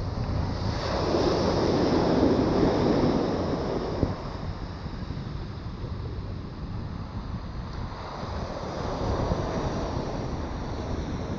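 Ocean surf breaking and washing up a sandy beach. It swells loudest about a second in and again more softly near the end, with wind buffeting the microphone throughout.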